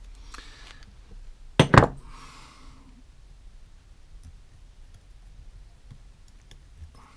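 A thin metal pick scraping and clicking inside a small two-stroke generator carburettor, digging at the hardened old-fuel deposits that clog it around the main jet. A sharp double metallic clink about a second and a half in is the loudest sound, followed by a short scratch.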